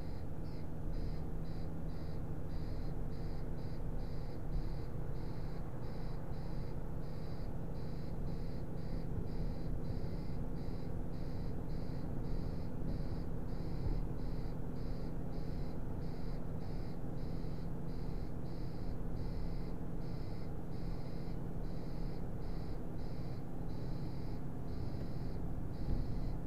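Car cabin noise while driving at a steady speed: a low engine and tyre rumble, with a thin high-pitched tone switching on and off unevenly, one or two times a second.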